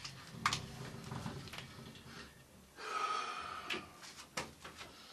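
A man breathing heavily and snorting as he bends over, with a few light clicks and knocks of things being handled.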